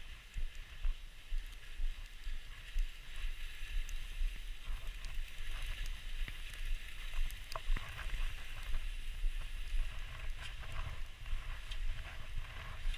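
Skis hissing over snow, swelling and fading about once a second, with wind rumbling on the microphone.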